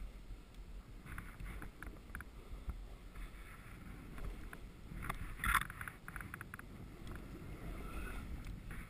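Snowboard sliding and carving through powder snow, a continual swishing and scraping, with one louder scrape about halfway through.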